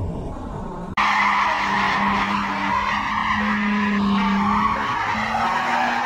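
Tyres squealing and skidding on asphalt as a Mercedes-Benz car is drifted, starting abruptly about a second in, with a steady engine note underneath; before that, a low traffic rumble.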